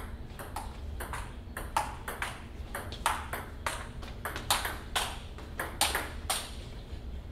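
Table tennis rally: the ball clicking sharply off the paddles and the table in quick alternation, about three hits a second, stopping about a second before the end.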